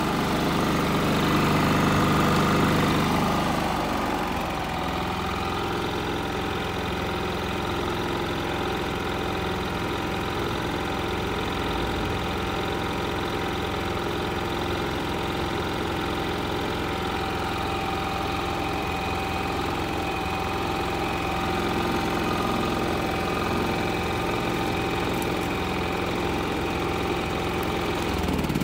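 Westinghouse iGen4500 inverter generator's single-cylinder engine running steadily in eco mode with no load, dropping to a slightly lower, quieter speed about four seconds in.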